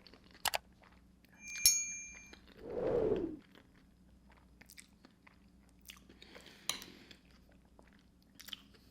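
Close-up eating sounds: chewing and crunching of fettuccine alfredo topped with crushed Flaming Hot Cheetos, as scattered small crunchy clicks. A sharp ringing clink about a second and a half in, and a brief low hum near three seconds.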